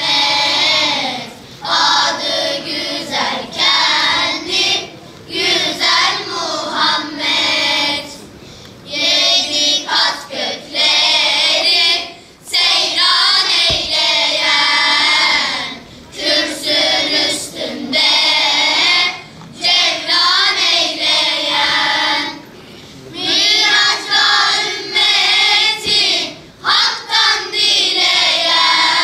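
A children's choir singing together, in phrases of a few seconds with short breaks between them.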